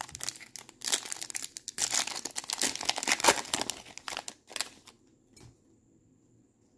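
A sealed Topps Chrome trading-card pack's wrapper being crinkled and torn open by hand: dense crackling and tearing for nearly five seconds, loudest in the middle, then it stops.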